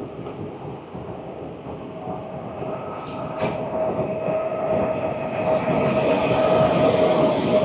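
Afrosiyob (Talgo 250) high-speed electric train approaching along the station platform. Its running noise grows steadily louder, with a steady high whine from about two seconds in.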